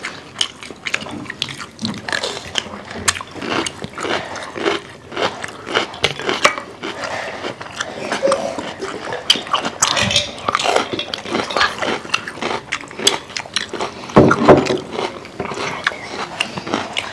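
Close-miked eating sounds: crisp crunching bites into raw bell pepper and wet chewing, with frequent sharp clicks of forks on plates. A louder cluster of crunches comes near the end.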